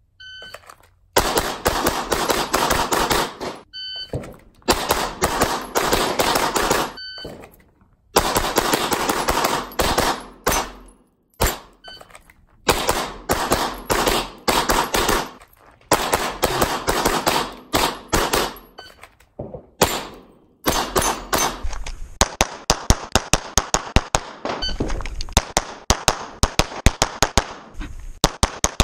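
9mm Glock pistol fired in rapid strings of shots, each string lasting a second or three with brief pauses between, the reports running together with echo. A few short electronic beeps, typical of a shot timer, sound early on. From about 22 s in, the shots come separately and evenly, about three or four a second.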